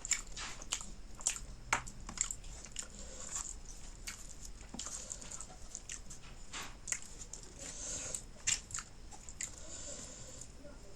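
Close-miked eating sounds of a person chewing fish curry with eromba: wet mouth clicks and smacks at an irregular pace.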